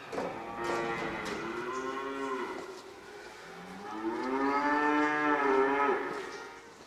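Calf mooing twice in the shed: two long, drawn-out moos, the second starting lower and lasting longer.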